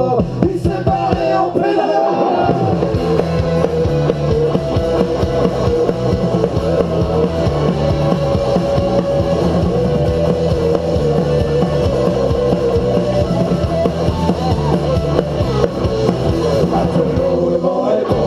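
Live rock band playing on stage with electric and acoustic guitars and drums; the low bass and drums come in fully about two seconds in.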